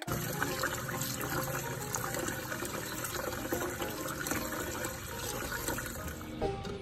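Kitchen tap running into a metal pot of rice in a stainless steel sink while the rice is rinsed by hand: a steady splashing of water.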